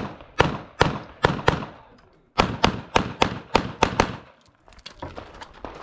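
Handgun fired in quick strings: about five sharp shots roughly half a second apart, a pause of nearly a second, then about seven faster shots, each with a short trailing echo.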